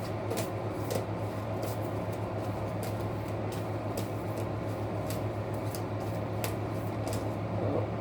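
Tarot cards being shuffled and handled, light irregular clicks and snaps of card stock, over a steady low electrical hum.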